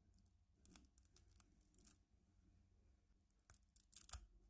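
Old, stiff woven cotton wick rasping and scraping against the brass burner as it is pulled out by hand, in short scratchy bursts, loudest near the end.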